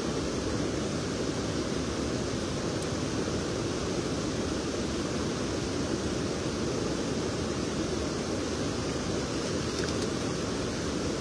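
Steady rushing of a swollen, muddy river pouring over a weir, an even low roar of water with no breaks.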